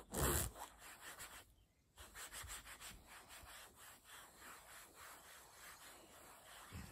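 Hand scrubbing on a computer mouse: a loud handling rustle at the start, a short pause, then a quick run of repeated rubbing strokes.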